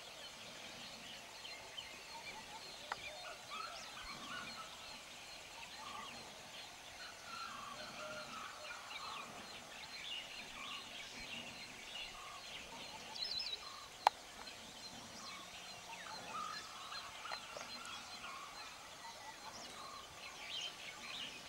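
Wild forest birds calling: many small chirps and twitters, with a short call repeated about once a second through much of the stretch. A single sharp click cuts through partway along.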